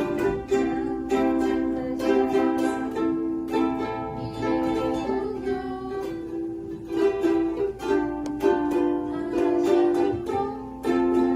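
Ukulele strumming chords in a steady rhythm, playing a melodic tune.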